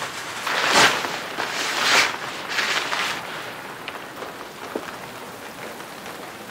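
A black plastic rain sheet rustling and crinkling as it is pulled off a parked motorcycle, in a few loud swishes over the first three seconds. Steady rain falls throughout.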